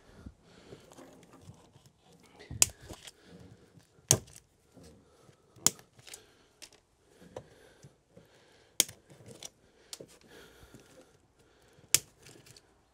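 Loose electrical cables being handled and pulled on a bare metal van floor, rustling, with about five sharp clicks or snips spaced a second or more apart as the old wiring is cut and cleared out.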